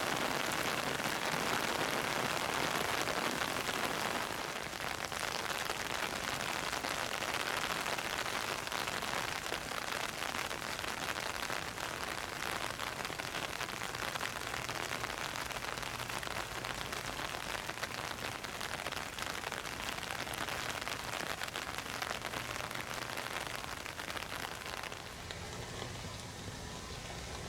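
Heavy rain falling steadily, a dense hiss of drops on hard surfaces, easing slightly about four seconds in and again near the end.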